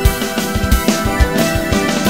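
Background music with a steady drum beat under sustained melodic tones.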